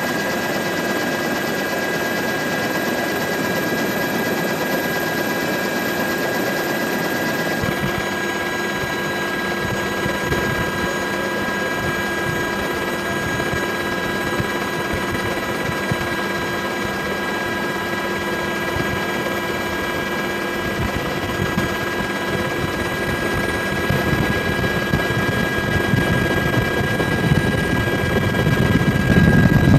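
Helicopter in flight heard from inside the cabin: a constant rotor and engine drone with several steady high-pitched whines. The tone shifts slightly about eight seconds in, and the drone grows louder over the last few seconds.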